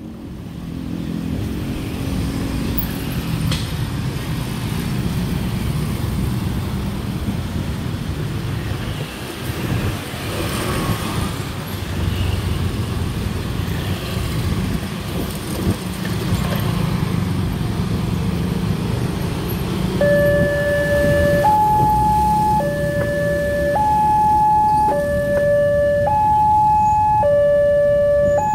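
Motorcycle and car traffic passing over a railway level crossing. About two-thirds of the way in, the new WANTECH crossing's electronic warning alarm starts: two steady tones, a lower then a higher, alternating about once a second. It signals an approaching train as the barriers come down.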